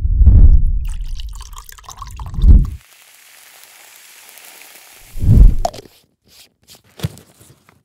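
Added sound effects for making a smoothie: deep thuds of frozen mango chunks dropping into a plastic blender cup, with a rustle of the bag. A faint steady hiss of chia seeds pouring comes in the middle, another thud follows, and a few sharp clicks come near the end.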